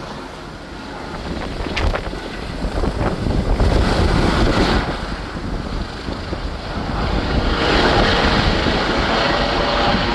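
Helicopter running, with wind buffeting the microphone over a low rumble; the noise grows louder about three-quarters of the way through.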